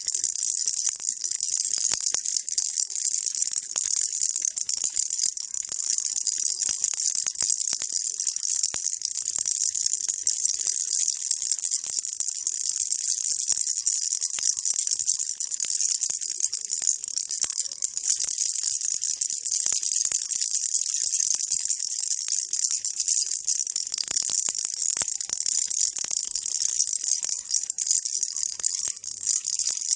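A baby's rattle shaken continuously, a dense, steady stream of tiny rattling clicks that sits high in pitch.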